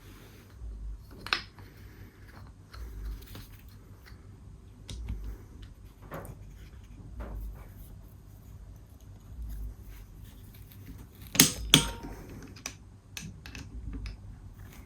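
Scattered light clicks and taps of hand tools and metal parts on a two-stroke cylinder's powervalve adjustment, with two sharp metallic clicks close together about eleven seconds in.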